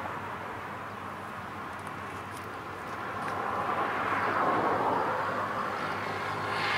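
Boeing 747-400F on final approach, its four turbofan engines making a steady rushing drone that grows louder from about halfway through as the jet draws nearer.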